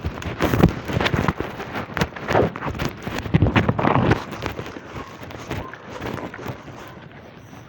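Running footsteps on the ground with gear jostling: quick, irregular thuds and knocks, loudest in the first four seconds and then fading.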